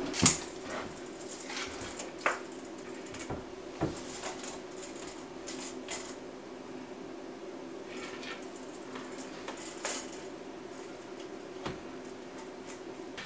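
A sharp metallic clank as a stainless steel sink unit is handled, then scattered light clicks and knocks from a tape measure being used against a wooden wall, over a steady hum.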